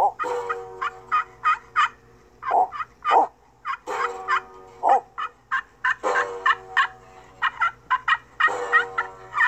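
Banjo plucked in an uneven run of twangy single notes and chords, each note ringing briefly before the next.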